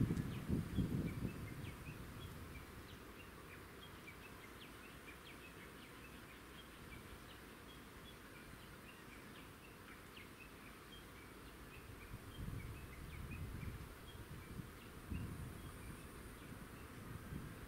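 Small birds chirping with many short, scattered calls over a quiet outdoor background. A low rumbling noise swells at the start and comes back twice after the middle.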